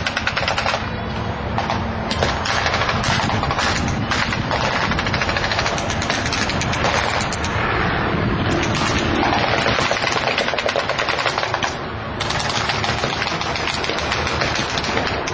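Rapid, continuous crackle of pyrotechnic simulated machine-gun fire, with a short lull about twelve seconds in.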